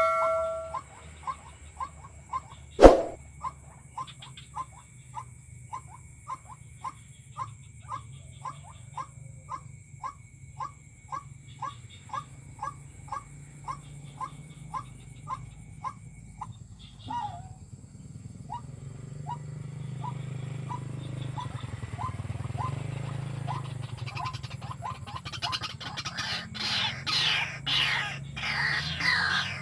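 White-breasted waterhen calling: one short call note repeated about twice a second, steady and even, turning into louder, busier calling over the last few seconds. A single sharp click comes about three seconds in.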